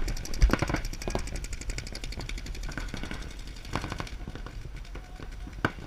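Paintball markers firing: a fast rattle of pops in rapid strings, with a few separate sharp cracks. The loudest crack comes about half a second in.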